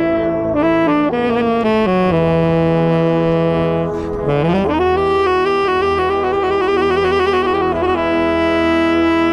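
Tenor saxophone solo played right at the microphone, with the marching band's brass sounding beneath it. The phrase steps down to a long low note, breaks off briefly about four seconds in, scoops upward, and settles on a long held note near the end.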